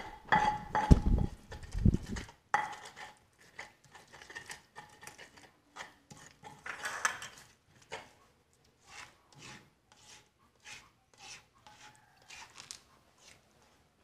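Stone pestle grinding and scraping chilli sambal against a stone mortar (cobek and ulekan), with a plastic spatula scraping the paste. The strokes come about two a second in the second half, after a few heavy low thumps in the first two seconds.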